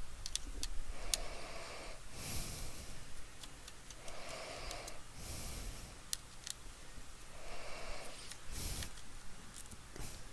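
A person breathing close to the microphone, a slow breath about every three seconds, with scattered light clicks and taps from handling small laptop parts and screws during disassembly.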